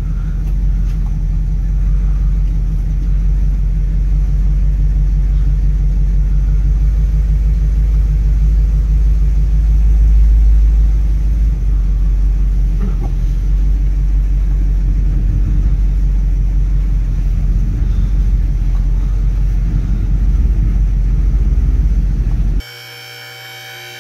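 1969 Pontiac Firebird's engine idling as a low, steady rumble, heard from inside the cabin while the car is eased along. Near the end it cuts off abruptly, leaving a quieter hum.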